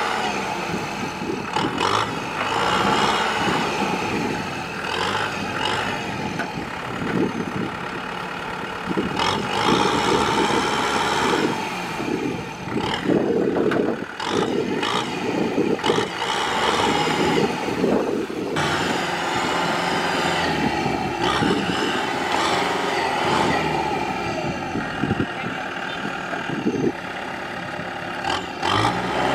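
Kubota M6040SU tractor's diesel engine running hard under load, its revs rising and falling, while the bogged wheels churn through deep mud and water.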